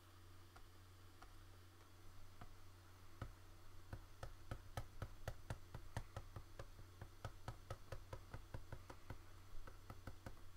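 Irregular quick clicking and tapping of computer input while painting a texture, several clicks a second from about two seconds in, over a steady low electrical hum.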